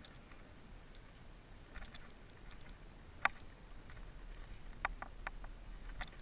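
A hose sprays water over a plastic kayak hull, a low steady hiss. A few sharp knocks or clicks sound over it, the loudest about three seconds in and several more near the end.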